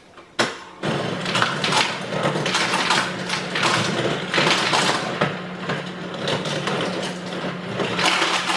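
Refrigerator door ice dispenser running: a motor hum with ice clattering down into a bowl, starting about a second in and cutting off shortly before the end.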